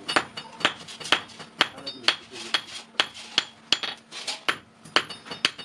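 Hammer blows on an iron kadai being shaped by a blacksmith, struck about twice a second. Each blow rings bright and metallic.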